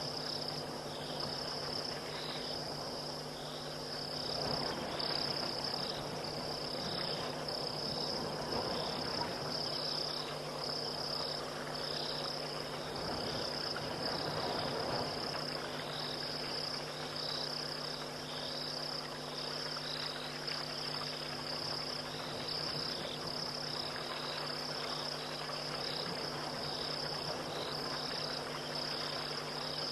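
Crickets chirping in a night chorus: a steady high trill with a second, slightly lower chirp pulsing a little more than once a second, over a low steady hum.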